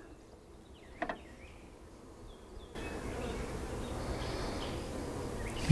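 Honey bees buzzing around the hives, faint at first and louder from about halfway through, with a single light click about a second in.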